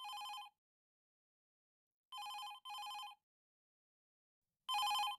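Telephone ringing in a double-ring pattern: pairs of short rings about two and a half seconds apart, the last pair louder. The call is answered right after.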